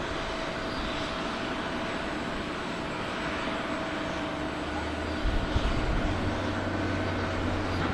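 Boeing 747-400 jetliner's four jet engines running at low thrust as it taxis onto the runway: a steady rush with a thin, even whine. A deeper rumble grows stronger about five seconds in.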